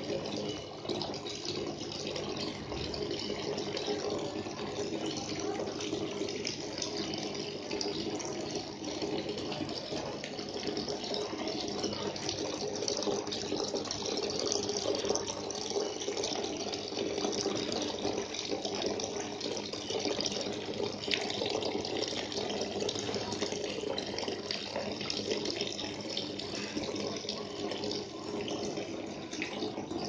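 Homemade indoor waterfall fountain running: thin streams of water falling down its carved channels and splashing steadily into the basin at its base.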